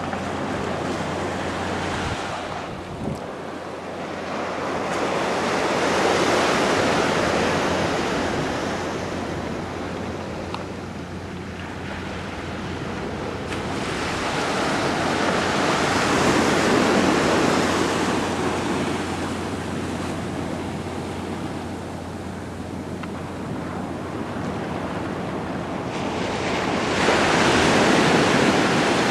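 Ocean surf washing onto a sandy beach, the noise of the breaking waves swelling and fading in slow surges about every ten seconds, with wind buffeting the microphone.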